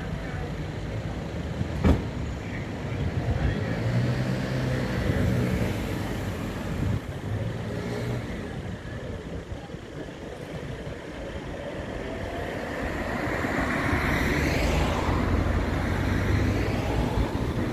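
Street traffic: car engines running and a car driving past close by, the traffic noise swelling near the end. A single sharp knock about two seconds in.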